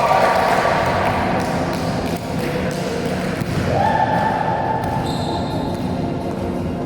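Indoor volleyball game: ball hits and thuds echo in a gym hall. A long held tone sounds at the start and again about four seconds in.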